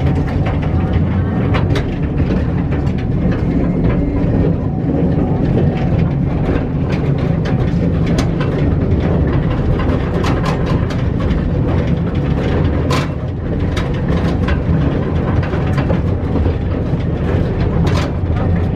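Electric mine trolley train running on rails through a coal-mine tunnel: a loud, steady low rumble with scattered sharp clacks and rattles from the swaying, jolting cars.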